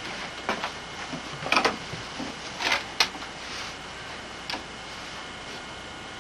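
Grooming scissors snipping dog's foot hair, a handful of short, irregular snips with one sharper click about three seconds in.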